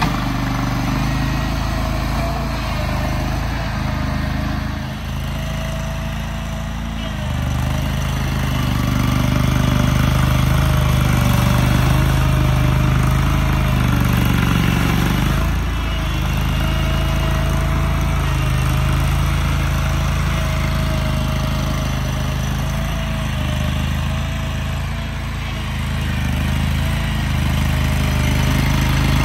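An engine running steadily, without a break.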